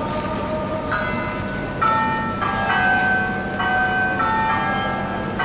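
Instrumental music: a slow melody of held, bell-like tones, each note sustained until the next one begins about every half second to a second.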